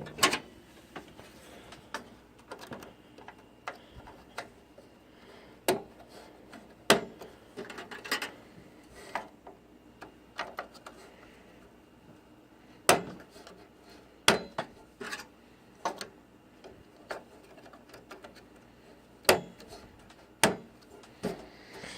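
Irregular clicks, clacks and knocks of metal and plastic parts of a desktop computer being handled and worked loose during disassembly, spaced a second or more apart.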